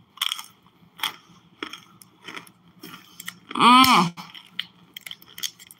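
A spoon scraping and clicking against hardened cornstarch and the thin plastic of a cut-open water bottle, in a string of separate short strokes. The cornstarch is set solid and hard to dig out. A short hummed vocal exclamation, rising then falling, comes about two-thirds of the way through.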